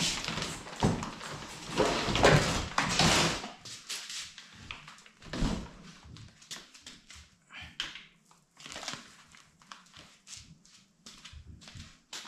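Plastic wrapping crinkling and cardboard rustling as a plastic-bagged folding bike is lifted out of its shipping box, with short knocks. The rustling is loudest in the first few seconds, then turns into quieter scattered rustles and clicks.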